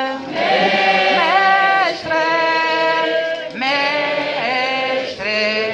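A group singing a Portuguese hymn, led by a man's voice over a microphone, in slow phrases of long held notes with short breaks between them.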